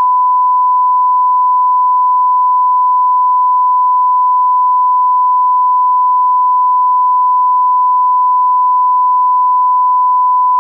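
One long, loud, unbroken bleep tone at a single steady pitch: a censor bleep masking a stretch of speech.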